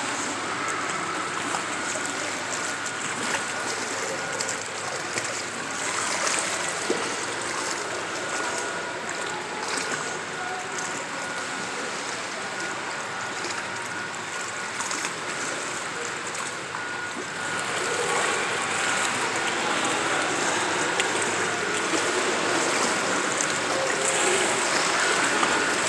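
Pool water splashing and sloshing as a child swims, kicking with swim fins. The splashing gets louder about 18 seconds in.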